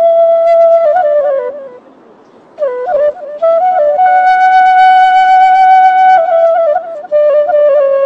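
Background music: a solo flute playing a slow melody of long held notes joined by quick ornamented runs. It drops out briefly about two seconds in.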